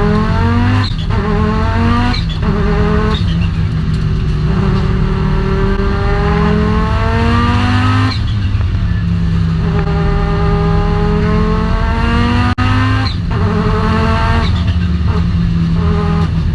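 Audi inline five-cylinder engine accelerating hard through the gears, its pitch climbing and dropping back at each upshift, several times over.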